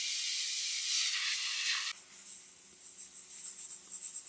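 Handheld compressed-air spray gun blasting a small metal watch part: a loud, steady hiss that cuts off suddenly about two seconds in.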